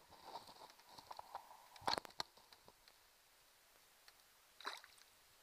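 Handling noises: clicks, crackles and knocks from a plastic bag and gear on a small plastic boat, loudest in a short cluster about two seconds in. Near the end a brief splash of water as a white perch is let go over the side.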